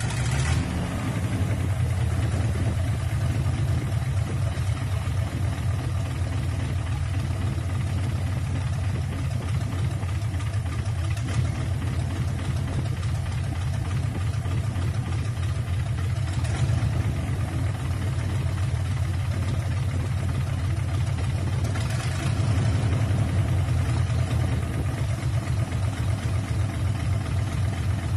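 10PD1 bus diesel engine idling steadily on a test run out of the vehicle.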